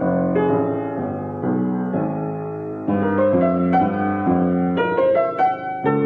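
Piano music: a melody of struck notes over held low chords, the notes coming faster in the second half.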